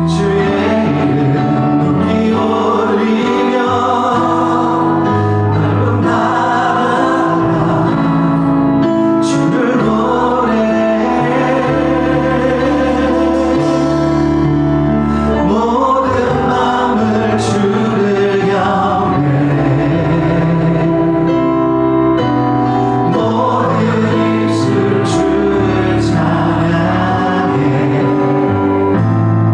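Congregational worship singing: a group of voices singing a slow hymn together over sustained instrumental accompaniment.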